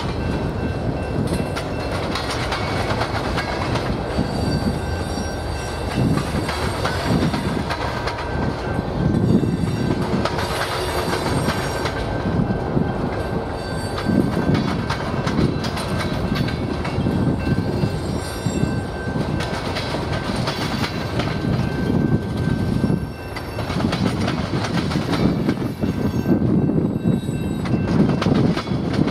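Freight cars rolling past at close range: a steady rumble with the wheels clacking rhythmically over the rail joints about once a second, and at times a thin squeal from the wheels.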